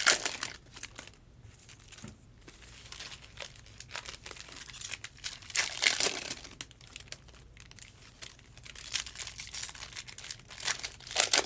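Trading-card pack wrappers crinkling and tearing as packs are opened, in irregular bursts that are loudest near the start, about six seconds in, and again near the end.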